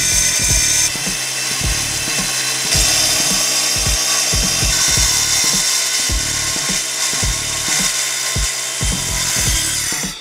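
Festool TS 55 REBQ plunge track saw running along its guide rail, cutting through a clear plastic sheet with a steady high-pitched whine and hiss. Background music with a steady beat plays underneath.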